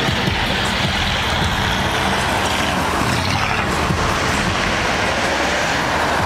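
Cars pulling out through expressway toll booths: a steady low engine rumble mixed with road noise, a classic American car among them.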